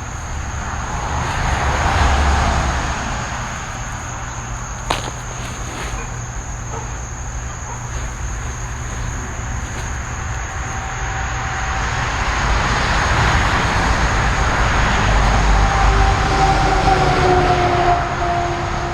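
Rumbling noise of a passing vehicle that swells twice, the second time longer, with a faint tone that slowly drops in pitch as it passes.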